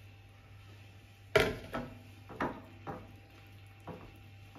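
A sharp knock about a second and a half in as a plastic measuring jug is set down on the counter, then a few softer, irregular knocks as dough is mixed by hand in a ceramic bowl that bumps on the countertop.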